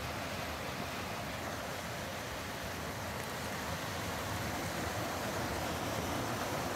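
Steady rushing of shallow creek water running over a gravel riffle, with an uneven low rumble underneath.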